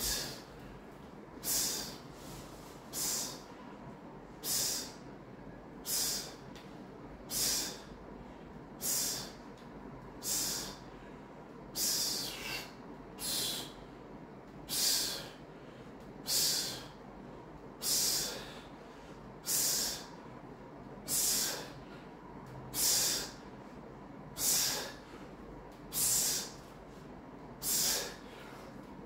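A man breathing out hard and sharply, one short hissing breath about every one and a half seconds, in time with each rep of a lying dumbbell lift.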